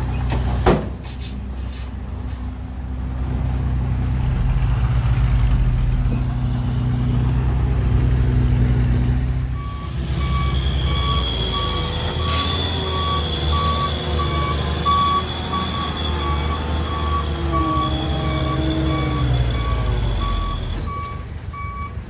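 A heavy diesel truck engine runs steadily, with a sharp knock just under a second in. About ten seconds in, a reversing alarm starts beeping, about two beeps a second, over the engine as the vehicle backs up. The beeping stops near the end.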